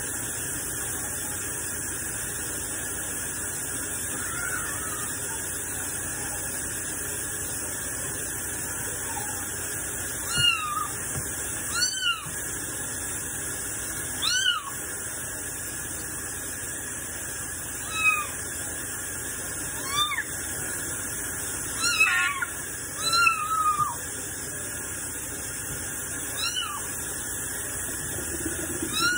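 A kitten meowing about ten times, short cries that rise and fall in pitch, mostly in the second half, protesting at being bathed. Under it, the steady rush of a kitchen faucet running into a steel sink.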